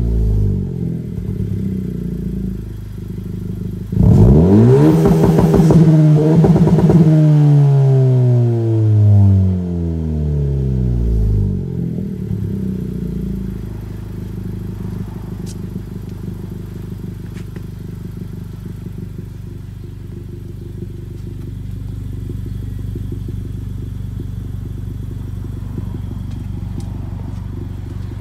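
Honda Civic Si's 1.5-litre turbocharged four-cylinder through an AWE Track Edition exhaust with dual tips. The engine is winding down at first, then is revved sharply about four seconds in, held a few seconds, and falls back over several seconds to a steady idle.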